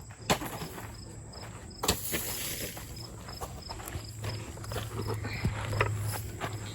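Insects chirping in a steady high pulse, about three chirps a second, with footsteps and a few sharp clicks, the loudest about two seconds in.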